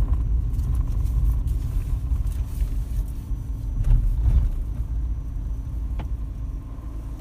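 Car's engine and road rumble heard from inside the cabin, growing quieter through the second half as the car slows.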